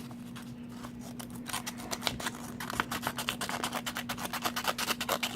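The small scissors of a Gerber Dime multi-tool snipping repeatedly, a rapid series of short clicks starting about half a second in.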